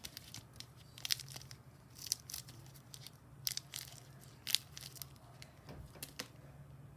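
Simple Dimple fidget toy's silicone bubbles being pushed in and out, giving an irregular string of light pops and clicks.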